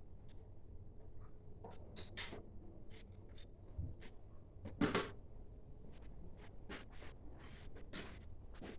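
Scattered light clicks and taps of tools and engine parts being handled, with one louder knock about five seconds in.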